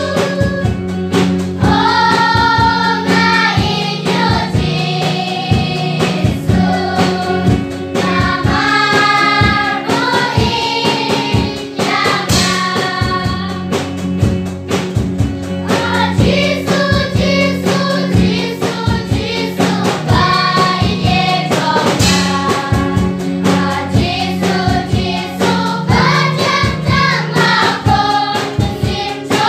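Children's choir singing a Christian song together into microphones, over a sustained accompaniment with a steady, regular beat.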